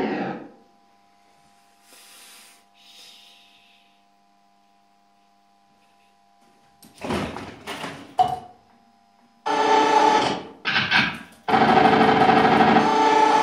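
Data East Lethal Weapon 3 pinball machine tilted: its game sound fades out and it goes almost silent for several seconds, leaving only a faint electrical hum. From about seven seconds in it plays short bursts of electronic sound effects. About eleven seconds in, a loud sustained electronic effect begins.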